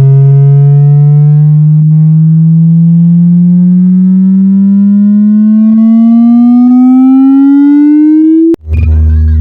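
A buzzy electronic tone sweeping slowly and steadily upward in pitch for about eight and a half seconds, then cutting off suddenly. Near the end, bass-heavy electronic music with deep low notes takes over.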